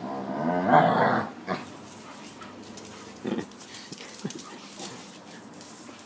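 A beagle and a basset hound play-fighting: a drawn-out dog growl about a second long at the start, then a few short, quieter sounds from the dogs.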